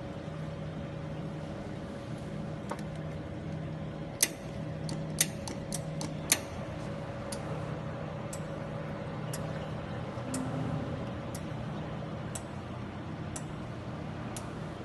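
Desktop laser jewelry welding machine running with a steady hum, its laser firing test pulses as sharp ticks about once a second from about four seconds in, while the focus is being checked.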